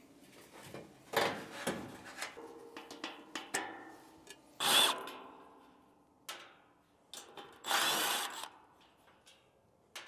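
Cordless drill with a socket bit spinning in several short bursts, backing out the nuts that hold a condenser fan motor to the unit's fan guard. The two loudest bursts come about halfway through and near the end.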